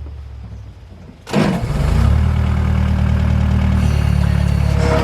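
A New Holland LX565 skid steer's diesel engine jumps from a faint low hum to loud, steady running about a second in.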